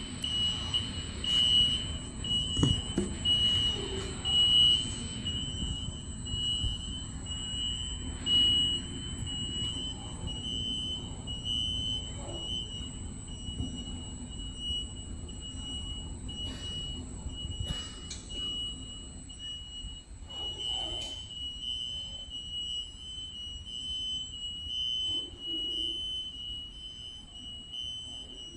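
Heavy-load AGV's warning sounder giving a steady high-pitched tone as it travels, over a low rumble, with a few faint knocks.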